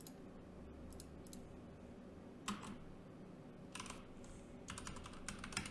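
Faint computer keyboard keystrokes and mouse clicks: a few single clicks spread out, then a quick run of keystrokes near the end.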